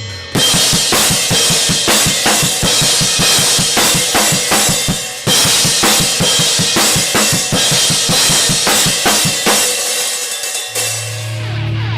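Heavy rock music led by drums: rapid, even bass-drum strokes under crashing cymbals and snare hits. Near the end the drumming thins out and a sustained low bass note comes in.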